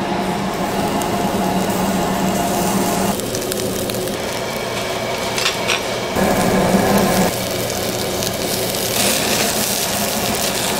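Beef sizzling on a grill over a steady fan hum. The sound changes abruptly twice, about a third and just over halfway through.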